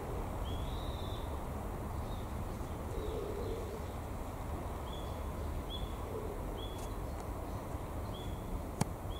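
Outdoor ambience with a bird giving short, high chirps again and again, about one a second in the second half, over a steady low background rumble. A single sharp click comes near the end.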